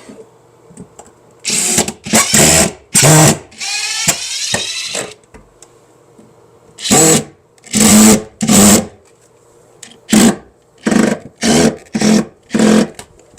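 Power drill run in about a dozen short trigger bursts, with one longer, quieter run of about a second and a half with its pitch sweeping, a few seconds in; it is working a small screw with a tiny bit.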